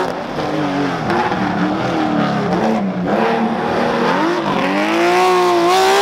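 Air-cooled flat-six engine of a Porsche 911 SC rally car under hard driving. The revs dip and waver on and off the throttle, then climb steadily from about four seconds in.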